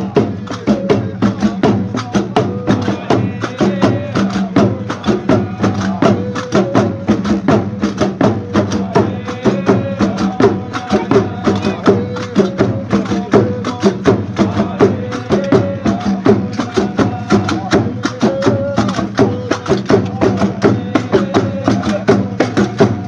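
Folk percussion ensemble: iron qarqabou castanets clacking in a fast, steady rhythm over large frame drums beaten with sticks, with men chanting along.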